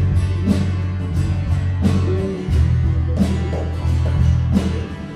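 Electric bass guitar playing held low notes over an instrumental worship-song backing track, with a slow, steady drum beat and guitar.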